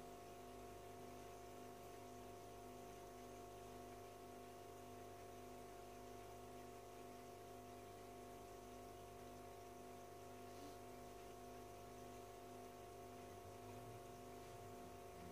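Near silence with a faint steady hum of several constant tones from the aquarium's internal filter pump.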